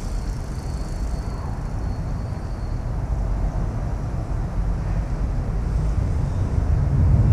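Steady low outdoor rumble with no distinct events, growing a little louder near the end.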